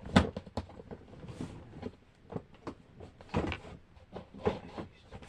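Plastic fidget toys being rummaged through and set down, with a storage drawer sliding: a string of irregular knocks and clicks, the sharpest just after the start.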